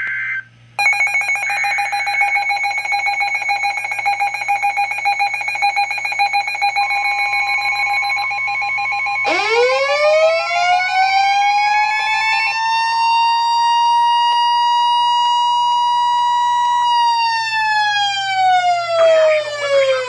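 Weather alert radios going off for a NOAA Weather Radio warning. A short burst of data tones (the end of the SAME alert header) comes first. Then a steady electronic alarm tone sounds, the 1050 Hz warning tone joins about seven seconds in, and a siren-like tone sweeps up about nine seconds in, holds, and falls away near the end.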